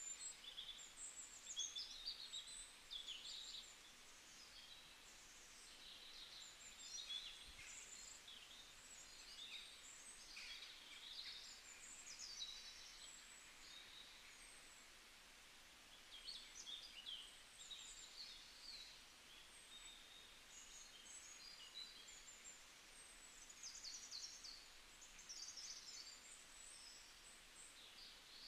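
Faint chirping of small birds: short high calls that come and go, over a low hiss.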